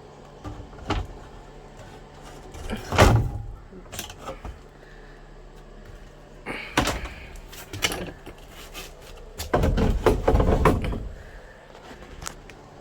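Truck dash panel being worked loose and pulled off: a series of knocks and clatters, the loudest about three seconds in, then a longer scraping rattle about ten seconds in.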